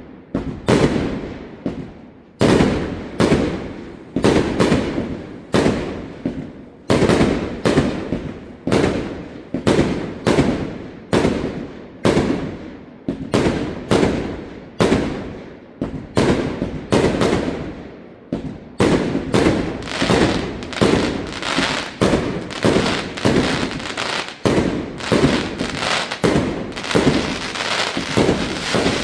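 Fireworks display: one to two loud bangs a second, each echoing away, thickening near the end into a dense run of bangs and crackle.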